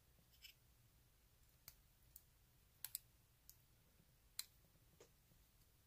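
Faint, scattered small metal clicks, about eight at uneven intervals with a quick double click midway, from a lock cylinder being taken apart while a thin shim is worked in at its plug.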